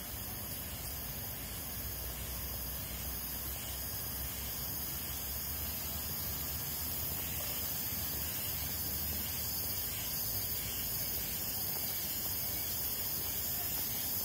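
Steady, even hiss of ambient noise with a low rumble underneath, with no distinct events.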